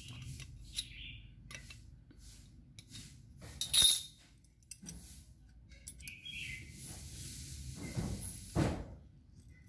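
Metal hand tools being handled on a table: light clicks and clinks of pliers, with one sharp knock about four seconds in and two more near the end. A bird chirps briefly past the middle.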